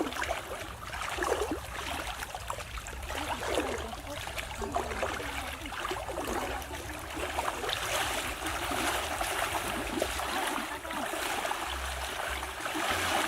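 Water sloshing and trickling, with many small irregular splashes.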